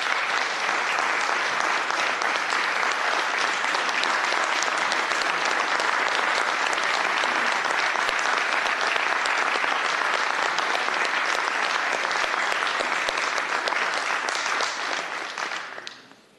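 A roomful of people applauding, a steady mass of clapping that tapers off and stops near the end.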